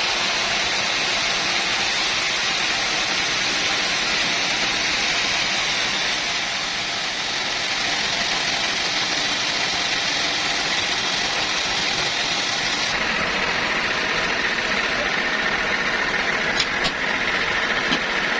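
Sawmill saw machinery running steadily, a dense even mechanical noise, with a few sharp clicks or knocks near the end.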